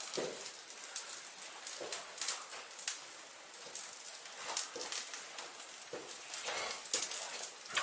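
Footsteps scuffing and tapping on the rocky floor of a cave: irregular clicks and soft scrapes at an uneven pace.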